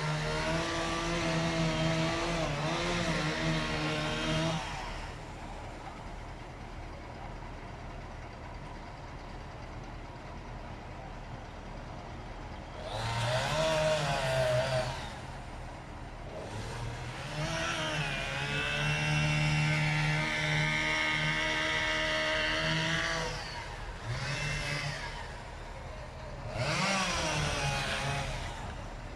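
Two-stroke chainsaw revving up to full speed in four bursts, dropping back to a lower idle between them, as in cutting trees.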